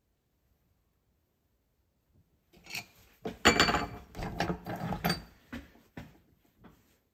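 Metallic clinking, scraping and rattling of a small steel lock latch against the jaws of a bench vise as it is worked and taken out. The latch is being bent so the lock holds the door tight. The run of clicks begins about two and a half seconds in, after silence, and includes a few short ringing metal notes.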